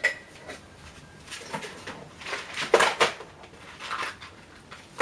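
Metal casing parts of a DVS-10 airspeed transducer being handled: a sharp click at the start, then scattered knocks and scrapes, loudest about three seconds in, and another click near the end.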